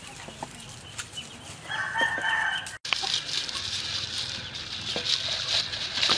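A rooster crows once, a call about a second long, a little before the middle. The sound then cuts out for an instant, and a steady hiss with small rustles and clicks follows.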